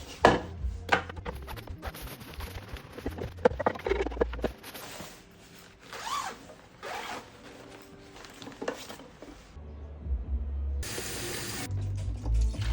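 Rubbing, scraping and scattered clicks of objects being handled by hand, over background music with a low bass line. About eleven seconds in there is a short burst of hiss.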